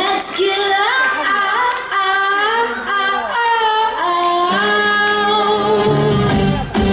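Recorded pop song played back over the hall's sound system, with a female lead vocal singing; a bass line comes in past the middle.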